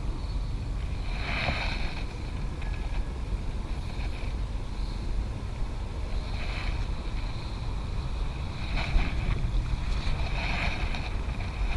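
Wind buffeting the microphone: a steady low rumble, with a few brief, fainter swells of hissing noise over it.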